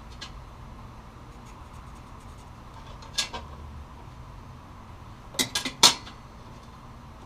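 Metal objects handled on a workbench, giving light clinks and knocks: a single one about three seconds in, then a quick run of four, the last the loudest, near the end.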